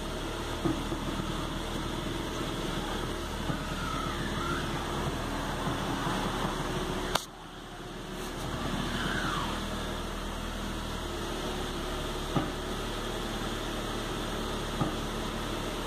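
Chevrolet Astra 2.0 idling while the steering is turned at a standstill, with short clicks from the front suspension: the upper strut mount bearing turns with the coil spring, so the spring shifts on its seat and makes a scraping noise. A sharp click comes about seven seconds in.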